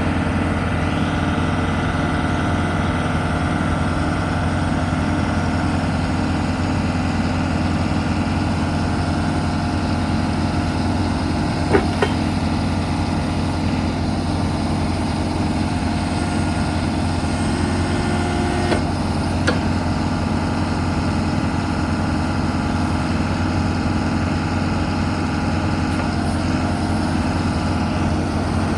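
2013 JCB 3CX backhoe loader's diesel engine running steadily at a constant speed. A couple of brief sharp clicks come about twelve seconds in, and again near twenty seconds.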